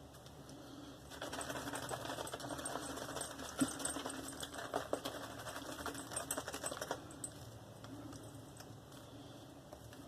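Proraso Omega boar-bristle shaving brush working a wet lather of Mitchell's Wool Fat soap: a fast, faint crackly clicking of bristles in the lather. It starts about a second in and stops about seven seconds in.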